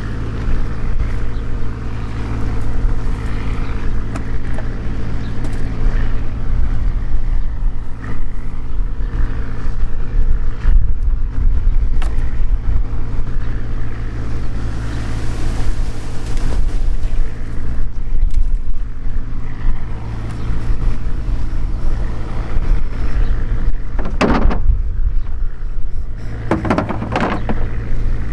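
An engine idling steadily with an even, low hum, over a fluctuating low rumble. A few short clatters come near the end.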